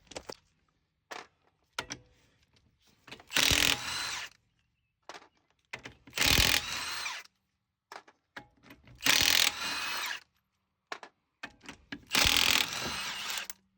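Impact wrench taking off a wheel's lug nuts: four bursts about a second long, roughly three seconds apart, each loudest at its start.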